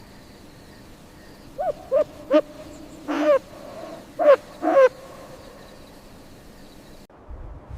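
An owl hooting: three short hoots in quick succession, then three longer hoots.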